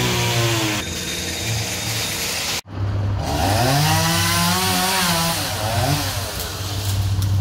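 Chainsaw engine revving up and easing back down to a steady run, in two stretches split by a brief drop-out about two and a half seconds in.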